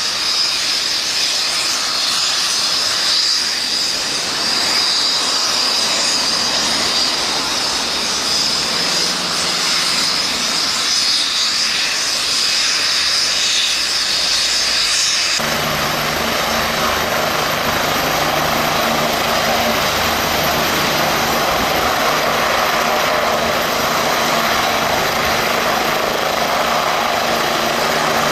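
Turbine helicopter running on the ground with its rotor turning, a steady high whine over the rotor noise. About halfway through the sound changes suddenly to a fuller, heavier rotor sound with a low hum as it powers up, and it lifts off near the end.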